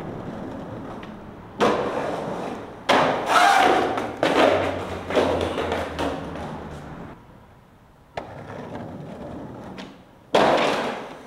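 Skateboard on concrete: several hard clacks and thuds of the board hitting the ground, each followed by rough wheel rolling that fades off. The four loudest impacts come about one and a half seconds in, near three seconds, near four and a half seconds, and near the end.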